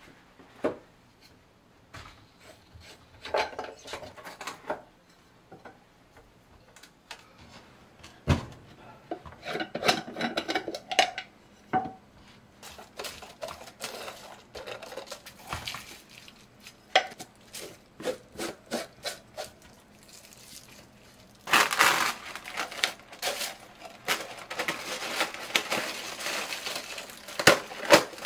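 Large glass jars and their lids being handled, with scattered knocks and clinks of glass. Press'n Seal plastic wrap crinkles and rubs as it is pressed down over the jar mouths, loudest and most continuous in the last several seconds.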